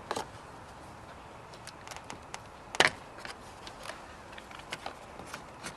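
Scattered light clicks and taps of tools or parts being handled, with one louder sharp knock about three seconds in.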